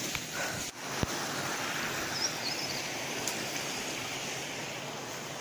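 Steady outdoor rushing noise, with a single sharp knock about a second in.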